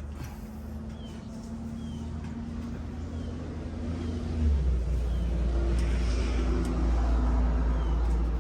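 A motor vehicle's engine running nearby, a low rumble that grows louder about halfway through.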